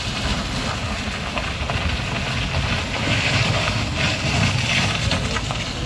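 A heavy truck's engine running with a steady low rumble, growing a little louder about halfway through.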